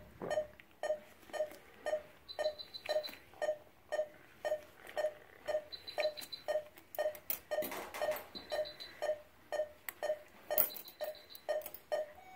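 Anaesthetic monitor beeping with the dog's pulse, a steady rhythm of about two beeps a second. A higher, rapid beep sounds briefly every three seconds or so.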